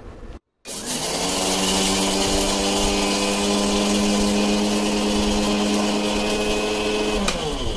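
Philips mixer grinder motor spinning up about a second in and running at a steady high hum, grinding sugar crystals into powder in its steel jar, then winding down near the end.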